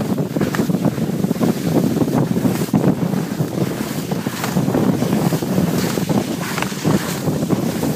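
Wind buffeting the microphone of a camera carried downhill by a moving skier: a loud, low, gusty rush.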